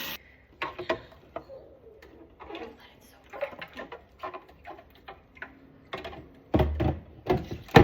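Irregular clicks and taps of plastic humidifier parts being handled, with a few heavier knocks near the end, the loudest just before it stops.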